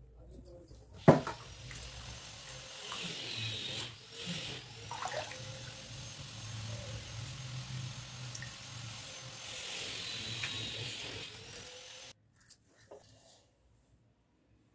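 Water running and splashing steadily for about eleven seconds, beginning with a sharp knock and cutting off abruptly.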